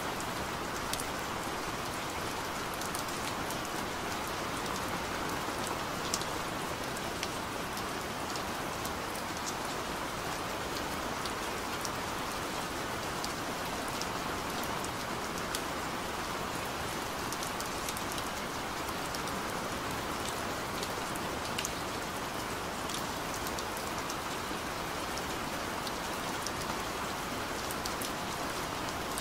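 Steady rain falling, an even hiss with scattered sharp drop clicks throughout.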